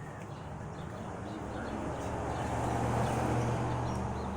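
A motor vehicle's engine running with a low steady hum that grows louder toward the middle and eases off near the end.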